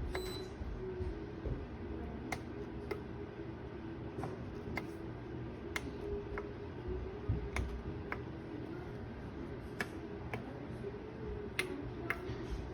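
Senville 1500W ceramic space heater running: a steady fan hum, with sharp clicks at irregular spacing, about one a second.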